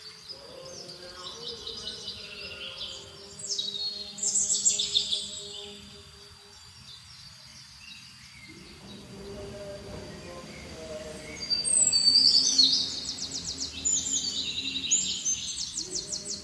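Small birds chirping and trilling in quick, high runs, loudest about four seconds in and again near the end, over faint steady background music tones.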